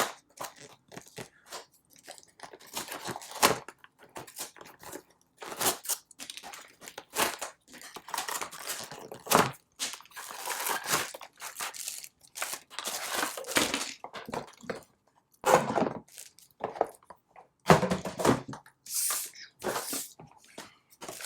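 Packaging being torn open and handled by hand: irregular crinkling, tearing and crunching with sharp clicks, in short bursts.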